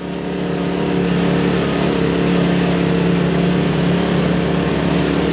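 Side-by-side UTV engine running at a steady pitch while driving along a rocky dirt trail, heard from on board, with a broad rushing noise over it.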